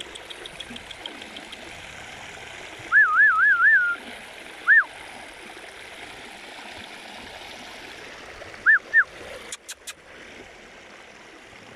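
A small stream flowing steadily. Over it come clear, high whistled notes: a short warbling run about three seconds in, one note near five seconds and two more near nine seconds.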